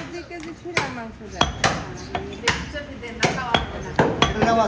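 Butcher's cleaver chopping beef on a wooden chopping block: about ten sharp chops at an uneven pace, coming closer together near the end.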